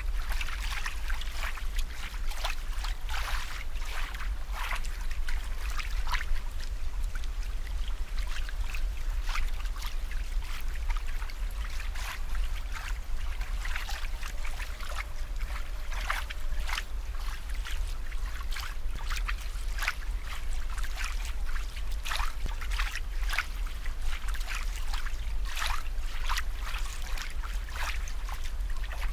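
Water bubbling and trickling, with many irregular small splashes and pops over a steady low hum.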